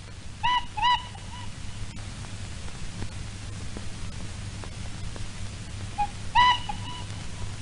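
Steam tram's whistle giving two short toots, then two more about six seconds in, over the steady hiss and hum of an old film soundtrack.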